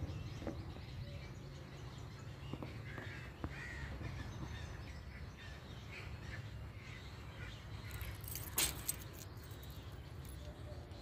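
Faint outdoor ambience with scattered bird calls, crow-like caws among them, over a low steady rumble; a short, loud rustling burst about eight and a half seconds in.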